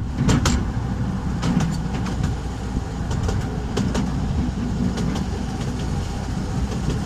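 Narrow-gauge Artouste mountain train running along its track, heard from aboard an open carriage. A steady low rumble is broken by irregular sharp clicks and clacks.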